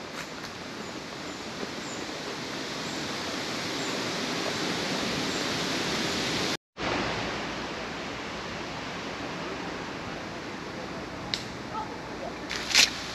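Steady rushing wind noise on the microphone, swelling through the first half, cutting out for a moment about halfway, then going on more evenly. A few short sharp clicks come near the end.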